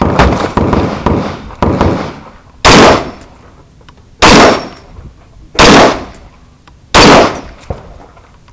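AR-15 rifle fired four times, about one and a half seconds apart, each shot very loud and sharp with a short echo, heard from a camera mounted on the rifle. A rattling, fading noise fills the first two seconds before the first of these shots.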